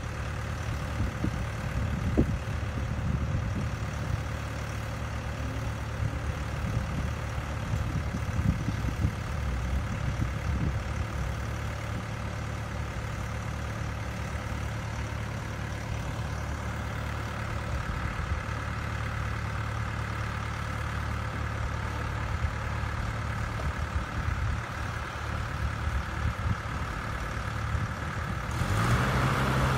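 CAT E120B hydraulic excavator's diesel engine running steadily as it digs, with occasional low clunks in the first half. The engine note rises and grows louder near the end.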